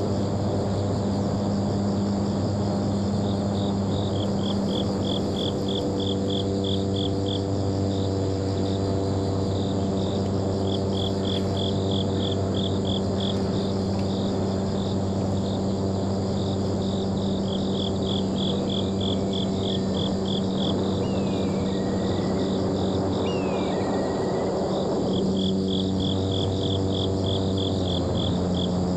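Insects chirping in rapid trains of high pulses, a train every several seconds, over a steady low hum.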